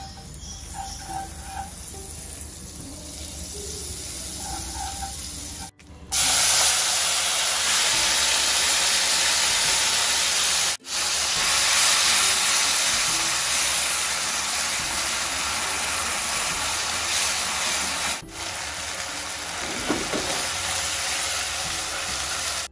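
Thin beef slices and onion sizzling as they stir-fry in a wok with margarine and a dark sauce, stirred with wooden chopsticks. The sizzle is softer at first and much louder from about six seconds in, with brief breaks where the shots change.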